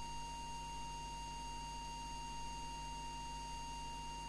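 Audio oscillator's steady test whistle at a single pitch near 1 kHz. It is the test signal fed into the CB transmitter while its AM modulation adjustment is checked. A faint mains hum lies underneath.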